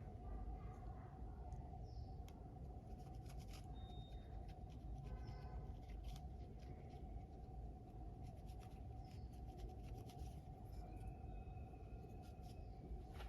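Faint rubbing of a cloth over the plastic shell of a computer mouse, with scattered light ticks, over a steady faint hum.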